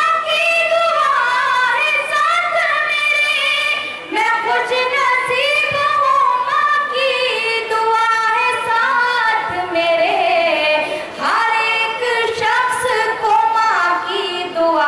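A woman singing an Urdu ghazal in long melodic phrases, her held notes bending and gliding in pitch, with short pauses about four and eleven seconds in.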